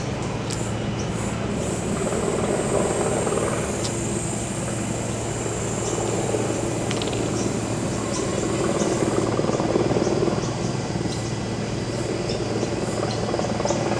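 Outdoor ambience: a steady low rumble with a high, even buzz that stops about nine seconds in, and scattered short high chirps.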